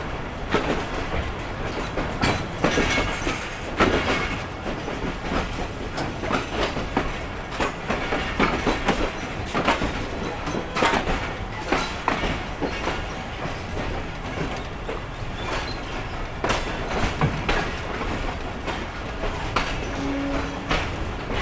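Passenger train coach running over the track, its wheels clacking irregularly over rail joints and points above a steady rumble and rattle of the carriage, heard from the open coach door.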